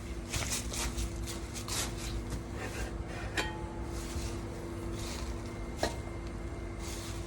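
Light metallic clinks and knocks from handling a sheet-metal muffler rain cap, with a sharp clink about three and a half seconds in that rings briefly and another near six seconds, over rustling and a steady low hum.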